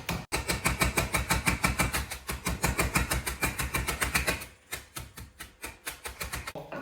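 Dry instant noodles in a bag being smashed into crumbs with rapid, even blows, about nine a second. The blows turn softer and sparser about four and a half seconds in.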